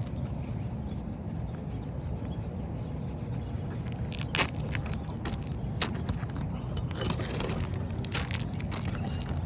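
Clinks and scrapes of hand tools working a roof shingle loose, starting about four seconds in and coming more often toward the end, over a steady low rumble.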